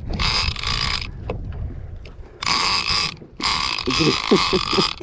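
Penn International II 30T trolling reel being cranked by hand, its gears whirring in three spells: about a second, then a short one, then a longer run near the end. The line is being wound in to check whether a fish is on.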